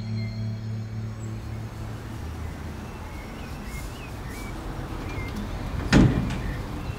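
Outdoor street ambience: a low, steady rumble of distant traffic with a few short bird chirps, after guitar music fades out in the first second. A single loud thump comes about six seconds in.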